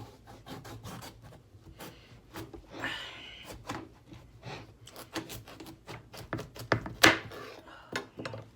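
Kitchen knife cutting an acorn squash in half on a cutting board: a run of irregular knocks and clicks of the blade against the tough squash and board, a brief scrape about three seconds in, and one loud thunk just after seven seconds.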